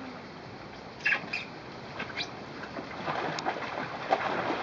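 Swimming-pool water splashing and sloshing as a small child paddles in inflatable armbands, with a couple of short high squeaks about a second in.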